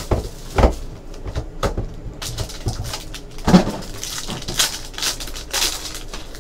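Foil trading-card pack torn open and crinkled by hand, crackling in bursts, with a sharp knock about halfway through.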